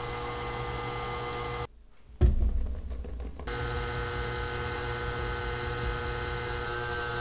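KitchenAid Artisan stand mixer motor running steadily as it stirs a shaggy bread dough. About two seconds in the sound drops out briefly, then comes a low thump, and the mixer's hum returns a second or so later.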